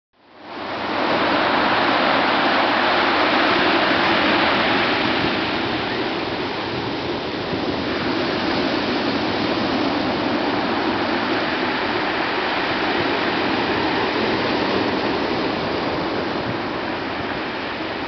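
Rough sea surf breaking on a pebble beach: a steady rush of waves and foam that fades in over the first second.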